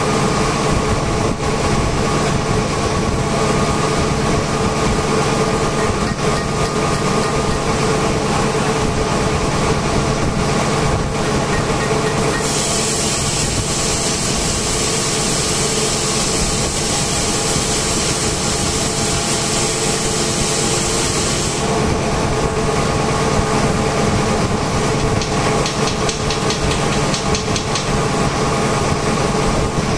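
Steady drone of running industrial machinery with several steady hum tones. A high hiss comes in about twelve seconds in and stops about nine seconds later.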